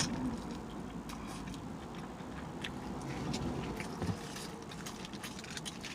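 Quiet close-miked chewing of a crepe, with scattered soft wet mouth clicks and a small low thump about four seconds in.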